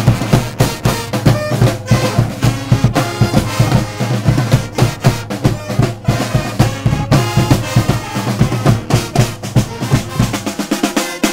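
Brass pep band playing an up-tempo tune: trumpets, trombones, saxophones and a sousaphone over snare and bass drums. The lowest bass notes drop out near the end.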